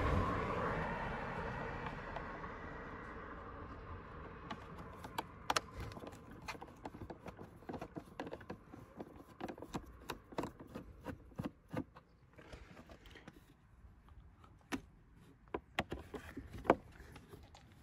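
Screwdriver loosening the screws of a plastic air-filter housing: scattered light clicks and taps of the tool on the screw heads and housing. A passing car fades away over the first few seconds.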